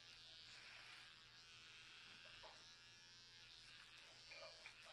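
Electric hair clippers running with a faint, steady buzz while cutting a man's short hair, with a few soft ticks near the end.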